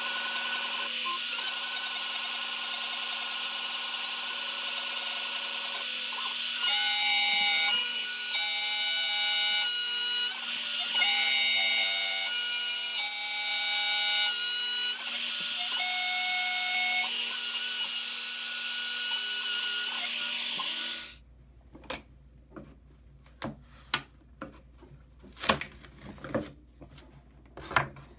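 Shapeoko CNC router milling a wooden jig: the Carbide 3D router spindle's high whine and cutting hiss, with tones that step in pitch every second or so as the machine moves. It stops abruptly about 21 seconds in and gives way to scattered light clicks and taps of the cut wooden pieces being handled.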